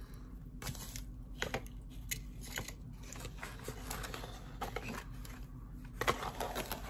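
Light handling noises: scattered soft clicks and rustling of paper packing, growing into a denser crinkling rustle near the end.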